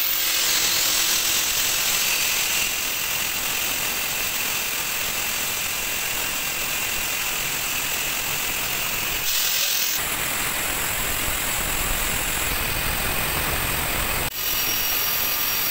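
Angle grinder with a cut-off disc cutting through a galvanized steel pipe: a loud, steady high-pitched whine and hiss of the disc biting metal, dipping briefly near the end.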